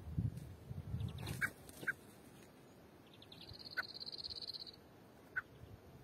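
Small birds at a drinking pool giving short, single call notes a few times, with a high rapid pulsed trill from about halfway through. Low rumbling in the first second and a half.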